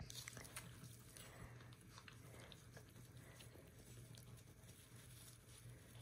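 African crested porcupine gnawing on a wooden log with its front teeth, a faint, irregular run of scraping and crunching clicks.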